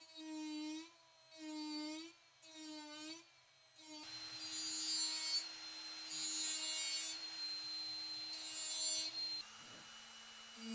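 Dremel rotary tool with a grinding stone whining at high speed as it grinds burrs off the iron axe head's socket: first several short touches about a second apart, then a steady run with three longer, scratchy grinding passes. Near the end the whine drops to a lower pitch.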